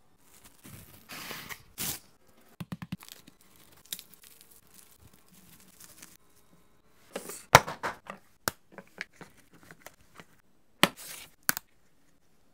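Plastic cling film crinkling and tearing as a rice sandwich is wrapped, then a knife cutting through the wrapped sandwich with sharp knocks on a bamboo cutting board.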